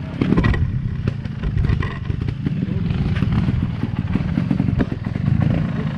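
Trial motorcycle's single-cylinder engine running steadily at low revs close by, with a rapid chattering beat.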